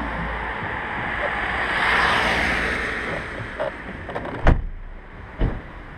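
A rushing noise that swells and fades, then two sharp clunks about a second apart near the end as a car door is opened and handled.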